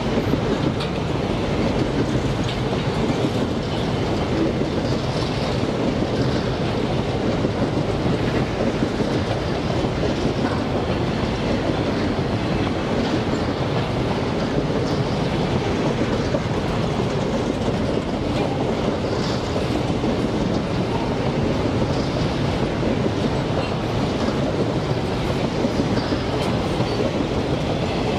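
Freight train of covered hopper wagons rolling past: a steady rumble and rattle of steel wheels on the rails, with faint high wheel squeals now and then on the curve.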